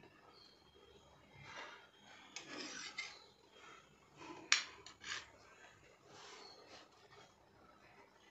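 Metal spoon and spatula scraping and rubbing against bread and a flat iron tawa in several short rasping strokes, with one sharp metallic clink about halfway through.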